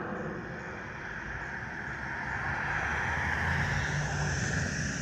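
Jet noise from an Airbus A321's CFM56-5B turbofan engines as the airliner flies away overhead after takeoff: a steady rumble and hiss that grows a little louder past the middle.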